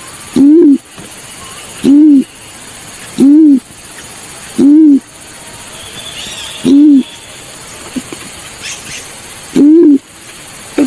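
Balorinay bird call: six low hooting notes, each rising and falling in pitch. They come about one and a half seconds apart, with longer pauses in the second half. Faint high chirps are heard between them.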